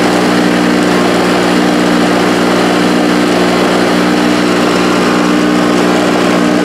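Mini air-pump compressor mounted on a small CNC router running with a loud, steady hum, its vibration carried into the machine's frame, as the spindle mills into a pine board.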